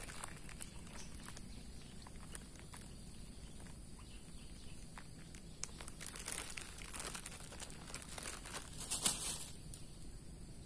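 Quiet outdoor ambience: a faint, steady high insect buzz under scattered small rustling and crinkling clicks, with a louder rustle about nine seconds in.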